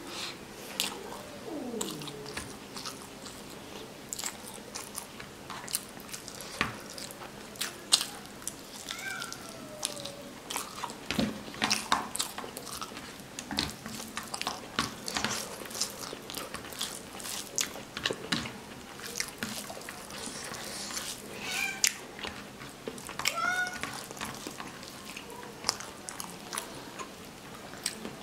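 Close-up wet chewing and lip-smacking of rice and curry, with fingers squishing and scooping rice on the plate. A few short, high, wavering calls come through about a third of the way in and again near the end.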